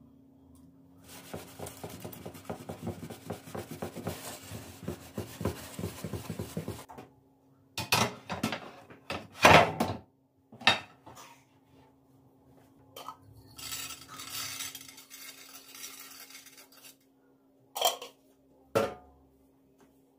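Dishes and cutlery being handled. First comes a stretch of rapid scraping of a utensil, then several sharp clinks and knocks about halfway through, then more scraping, and two last clinks near the end.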